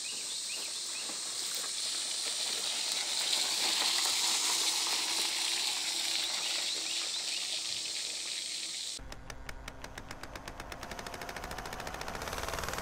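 A steady outdoor hiss for about nine seconds, then a sudden cut to a rapid run of ticks that speeds up over a low rumble, leading into intro music.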